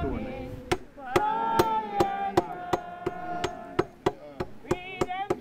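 A group of people singing a hymn, with sharp knocks or strikes about two or three times a second underneath the singing.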